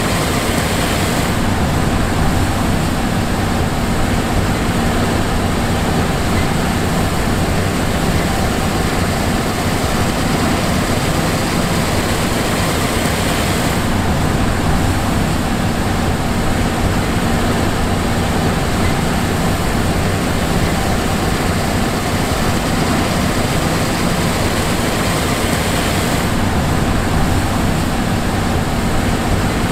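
John Deere S780 combine's diesel engine and machinery running steadily at an even pitch, a low drone under a broad hiss.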